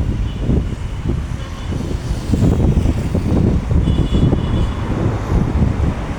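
Low, gusting rumble of road traffic mixed with wind buffeting the microphone.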